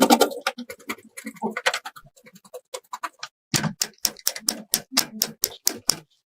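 A rapid run of short, sharp clicks and taps, irregular at first, then settling into an even run of about four to five a second from about three and a half seconds in and stopping shortly before the end.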